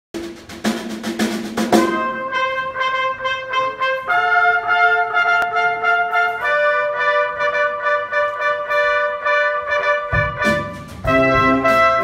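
Live big band brass section, trumpets with saxophones, playing held chords that change every few seconds, after a quick run of drum strikes at the start. Near the end the drums and low instruments come in, and the sound grows fuller.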